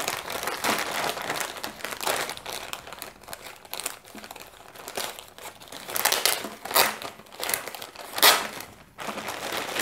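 Clear plastic packaging bag crinkling as hands peel off its sealing sticker and open it. The crackling is irregular, with a few sharper crackles in the second half.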